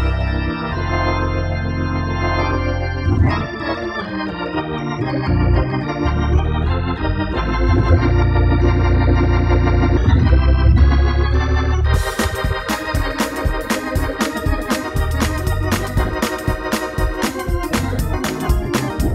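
Hammond organ playing a gospel selection: held chords over a steady bass line, then about twelve seconds in it switches abruptly to brighter, choppier playing with short repeated chords.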